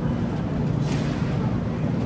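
Steady low mechanical hum, with a brief hiss about a second in.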